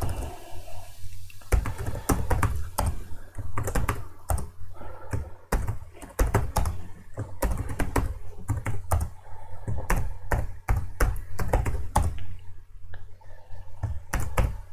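Typing on a computer keyboard: irregular runs of keystrokes with short pauses between words.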